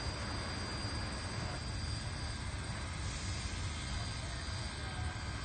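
Soo Line 1003, a 2-8-2 Mikado steam locomotive, working its train at a distance: a steady low rumble with hiss and no distinct exhaust beats.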